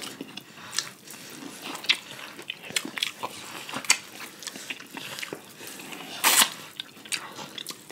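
Crab shells being cracked and eaten by hand: scattered clicks and crunches with chewing, and one louder crunch about six seconds in.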